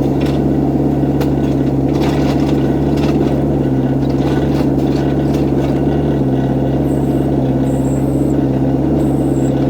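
Excavator's diesel engine running steadily at a constant speed, with three short high-pitched sounds near the end.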